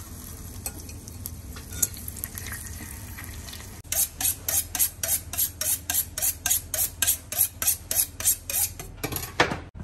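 Cooking in a pan: a steady sizzle at first, then from about four seconds in a utensil stirring and scraping against the pan in regular strokes, about three a second, stopping shortly before the end.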